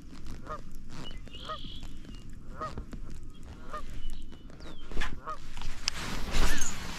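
Geese honking in the distance, one honk about every second. Near the end, a louder rush of water noise as the spinnerbait splashes through the surface on the retrieve.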